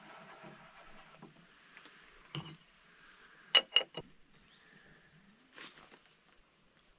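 A few sharp knocks and clicks over a faint steady background, the loudest two in quick succession about halfway through.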